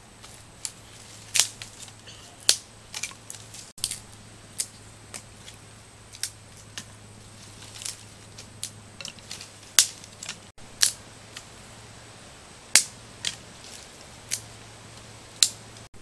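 Dry sticks and twigs snapping and cracking as firewood is broken and laid, a sharp crack every second or so at irregular intervals.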